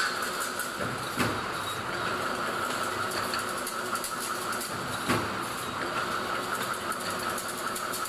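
Automatic double-wire chain link fence machine running as it weaves diamond mesh: a steady whine with fast metallic rattling, and a louder clunk about every four seconds, twice here.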